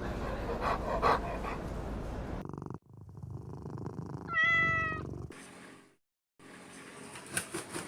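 Domestic cat purring with a steady low rumble, then, after a break, a single meow about four seconds in.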